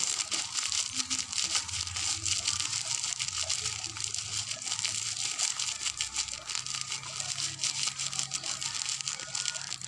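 Plastic bag of salt crinkling in the hand while salt grains pour out of it and patter into a glass jar of chopped shallots and chillies.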